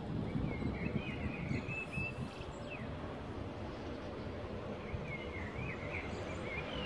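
A songbird singing twice in short warbling phrases, over a steady low, uneven rumble of outdoor noise.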